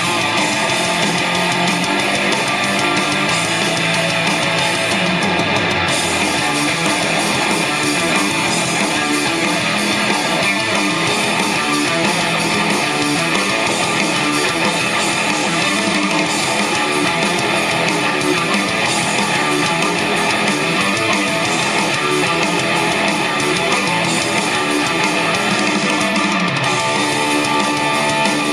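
Guitar music playing back from a cassette tape in an MCS 683-3595 dual stereo cassette deck, steady and continuous.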